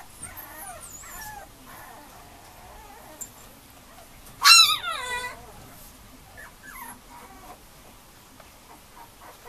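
Mame shiba puppy whining softly in short high glides, then giving one loud yelp whose pitch falls, about four and a half seconds in, followed by a few faint whines.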